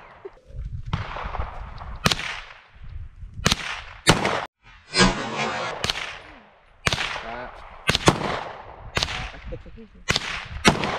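Semi-automatic pistol shots fired one at a time, about a dozen at roughly one-second spacing, each sharp crack trailing off in an echo.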